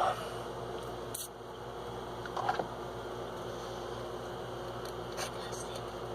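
Light handling of a vape tank and mod: a few small, short clicks over a steady low hum.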